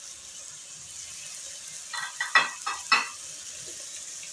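Meat frying with its spices in a pressure cooker, a steady sizzle, while a wooden spatula stirs it. About halfway through come a few sharp knocks and scrapes of the spatula against the metal pot.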